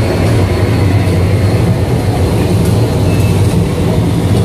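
Special-effects propane flame jets burning, a loud steady low rumble.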